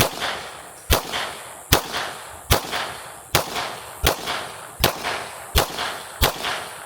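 A string of pistol shots fired at a steady, deliberate pace, about nine in all, a little under one a second, each sharp crack trailing off in a short ring.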